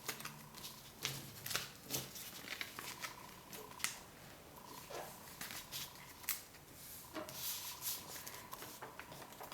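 Sheet of paper being folded and creased by hand: irregular crinkling and rustling with short sharp crackles.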